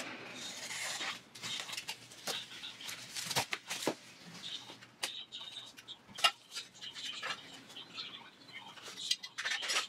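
A large cardboard box being opened and unpacked by hand: flaps scraping and bending, with irregular sharp crackles and knocks from the cardboard, foam packing and plastic wrap being handled.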